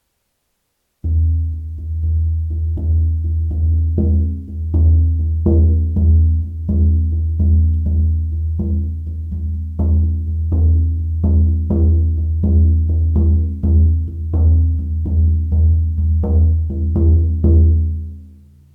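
A shaman drum beaten in a steady beat, a little under two strokes a second, each stroke giving a deep, ringing boom. It starts about a second in and dies away near the end.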